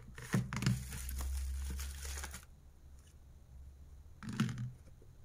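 Plastic coin blister cards crinkling and rustling as gloved hands handle them. There is about two seconds of crinkling near the start and a shorter rustle near the end.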